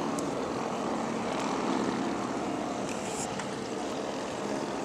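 Propeller engine of an AT-6 warbird, a single-engine radial, running steadily as the plane flies past overhead.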